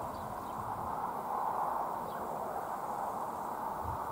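Outdoor ambience: a steady hiss with a few faint bird chirps, and a low rumble coming in near the end.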